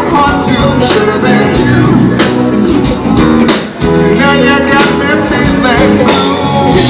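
Live blues-rock band playing through a PA: electric guitars, keyboard and a drum kit keeping a steady beat, with a singer's voice over them.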